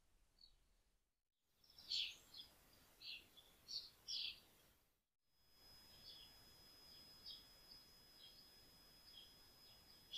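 Small birds chirping: a scattering of short, high calls, loudest at about two seconds and again at the very end, in two stretches split by a brief cut to silence. A faint steady high whine runs under the second stretch.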